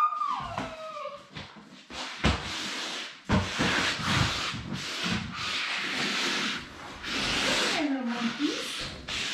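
Paper towels scuffed back and forth under foam clogs on a wooden floor, a scratchy rubbing in long strokes from about three seconds in. Seven-week-old Labrador puppies whine briefly at the start and again near the end.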